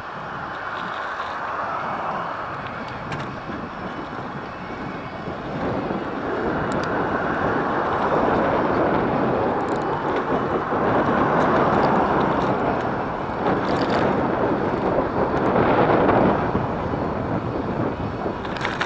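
Wind buffeting the microphone of a moving bicycle's camera, mixed with tyre noise on rough asphalt; it swells through the middle and eases near the end, with a few faint knocks from bumps in the road.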